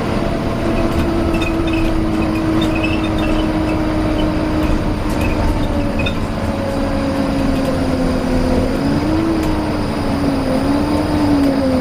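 Volvo B9TL double-decker bus running with a loud whine over a low rumble. The whine slowly falls in pitch, wavers up and down about three-quarters of the way through, and drops away at the end.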